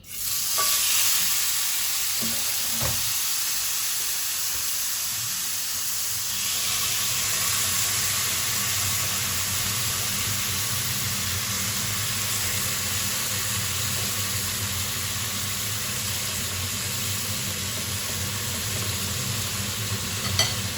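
Spiced lamb chops sizzling on a hot grill. The sizzle starts suddenly as the meat goes on and stays steady throughout, with a couple of light knocks about two to three seconds in.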